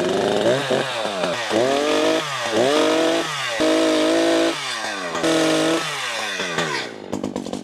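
Two-stroke chainsaw revved up and down again and again, held at full throttle for under a second at a time while clearing small saplings. It drops to a fast, even idle about seven seconds in.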